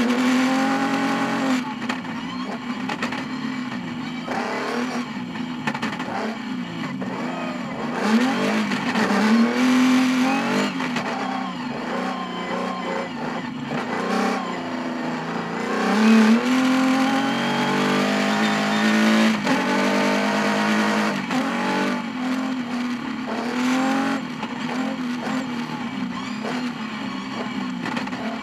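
Rally car engine heard from inside the cockpit at full stage pace, the revs climbing and dropping again and again through gear changes and lifts off the throttle.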